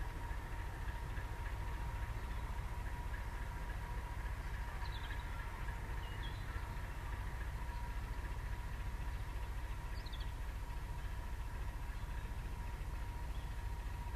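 Class 73 electro-diesel locomotive running on its diesel engine as it slowly hauls a rake of goods wagons: a steady low rumble with a thin constant whine.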